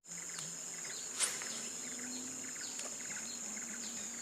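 Steady high-pitched drone of insects, with scattered short chirps over it and one sharp click about a second in.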